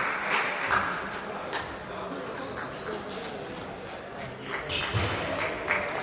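Table tennis ball striking bats and table: sharp clicks in short quick runs, near the start and again near the end, over a murmur of voices in the hall.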